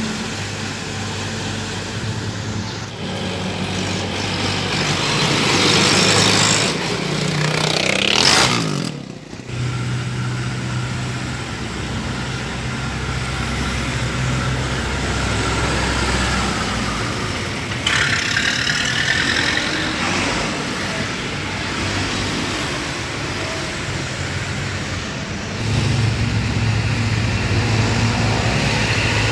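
Tractor engines running steadily as tractors pass slowly along the street. The engine sound swells around six to eight seconds in, drops off briefly, then grows louder again near the end.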